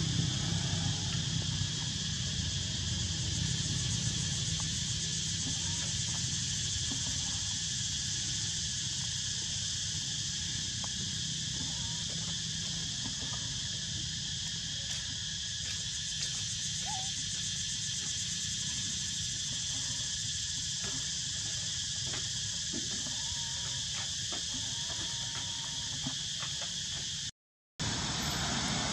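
Steady, high-pitched insect chorus over a low, steady rumble. The audio drops out completely for a moment near the end.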